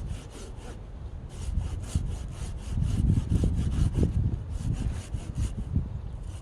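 Saw cutting through wood in quick back-and-forth strokes, about three a second, with a short pause about a second in.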